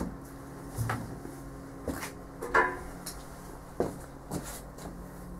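Light knocks and clicks of objects being handled, a few scattered over several seconds. About two and a half seconds in there is a short voiced sound.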